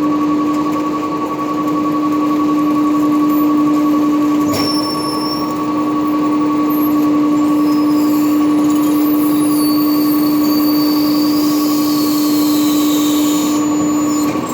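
Recycling truck running its packer: the engine and hydraulic pump are run up to a steady high speed and held there with an even whine, then drop back just after. From about a third of the way in, a click and scattered high metallic squeals come from the compacting mechanism.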